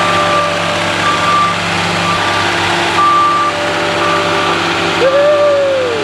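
Moffett truck-mounted forklift with its engine running and its backup alarm beeping about once a second as it moves. Near the end a whine rises and then slowly sinks.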